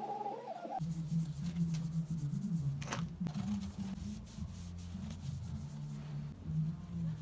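Cloth rubbing and wiping along a bicycle suspension fork's steel stanchion, a dry scuffing, over a low steady hum. One stronger scrape comes about three seconds in.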